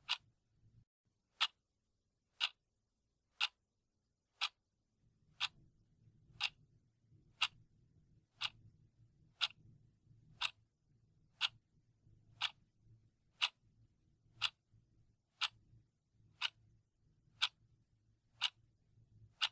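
Clock ticking, one short sharp tick about every second, marking off the seconds of a countdown timer.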